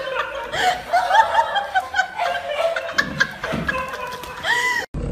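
High-pitched human laughter in quick repeated bursts, ending in a drawn-out rising squeal that cuts off abruptly near the end.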